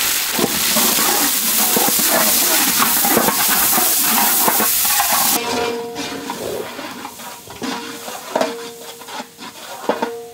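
Chopped onion frying in hot oil with a loud, steady sizzle that cuts off suddenly about five seconds in. After that, a ladle stirs in the pan and knocks against it, with faint background music.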